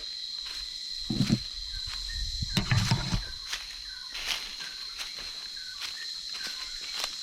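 Footsteps on forest ground, one step about every half second, over a steady high-pitched insect drone. Two dull thumps come about one and three seconds in.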